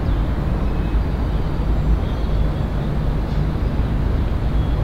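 Steady low outdoor rumble with a faint haze above it, and now and then faint short high chirps.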